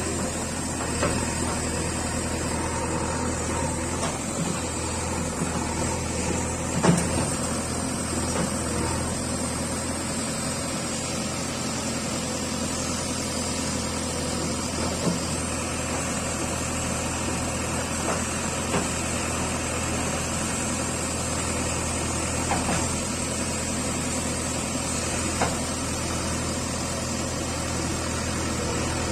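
JCB backhoe loader's diesel engine running steadily as the backhoe digs, with a few sharp knocks, the loudest about seven seconds in.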